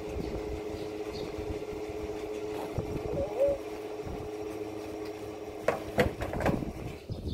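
Petrol pump dispenser humming steadily while fuelling, then stopping about six seconds in, followed by a few clunks as the fuel nozzle is handled and put back.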